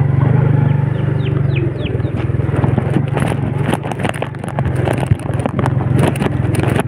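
Old Yamaha Vega motorcycle's small single-cylinder engine running steadily at low revs on a rocky road, with frequent knocks and rattles from the stones under the wheels. A few short chirps about a second in.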